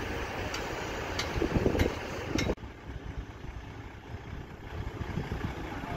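Truck crane's engine running steadily, with four sharp metallic ticks about every half second at first; the sound changes abruptly about two and a half seconds in to a quieter engine hum.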